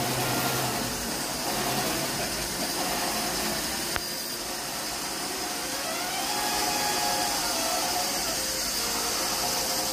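Metal lathe turning a bronze packing gland: the machine runs steadily while the tool cuts, making a strong high hiss. A single sharp click about four seconds in.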